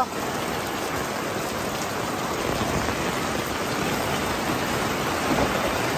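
Heavy rain falling on a camping tarp, a steady rush of water, with the rainwater pooled on the sagging tarp spilling off its edge in sheets.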